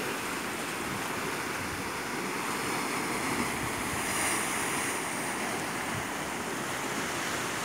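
Sea surf washing and churning around rocks on a shoreline, a steady rush that swells slightly about four seconds in.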